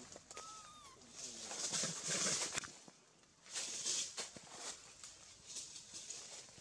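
Leaves and branches rustling and crackling in the tree canopy in several bursts as monkeys move through them, with a short whistled bird call about half a second in.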